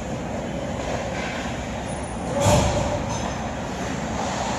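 Ice hockey play in an indoor rink: a steady noise of skating and arena background, with one loud, sharp hit about halfway through.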